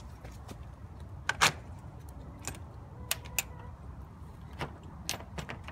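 Scattered sharp clicks and knocks, the loudest about a second and a half in, as a hinged corrugated-metal coop roof is handled and lifted open.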